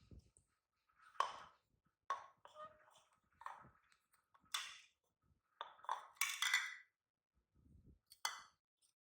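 A series of short, light clinks at irregular intervals, about eight in all, the loudest cluster about six seconds in.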